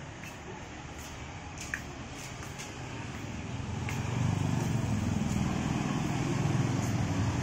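Road traffic, motorcycles and cars going by, with a low engine rumble that swells about halfway through and stays loud to the end.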